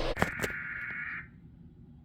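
Two clicks, then an Emergency Alert System digital data burst: a buzzy tone lasting about a second before fading out.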